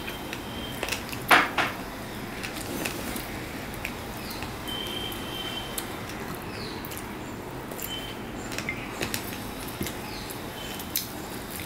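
Eating sounds from hand-eating chicken biryani: fingers working rice on a plate and mouth smacks while chewing, as scattered small clicks over a steady low hiss, with two louder clicks a little over a second in.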